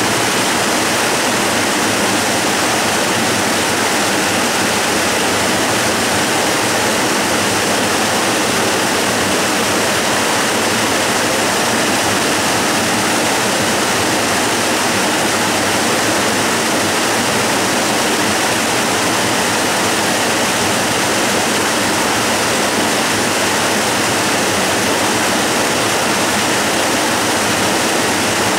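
Waterfall rushing steadily: an even, unbroken hiss and roar of falling water over rock, with no change in level.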